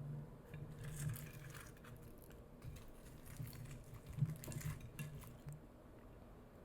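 Wet, sticky crackles and soft clicks of gloved hands working thick sauce over crispy fried chicken drumsticks, with one sharper click about four seconds in, over a low hum that comes and goes.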